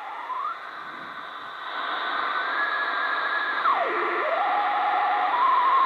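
Sony ICF-Pro80 receiver's loudspeaker on longwave: hiss and static under a whistling tone that slides up, holds, then drops and climbs again as the tuning is turned. Near the end the whistle settles on a steady tone as an RTTY data station is tuned in.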